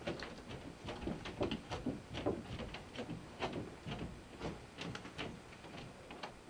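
Irregular clatter of knocks, taps and scrapes, several a second, with no steady rhythm.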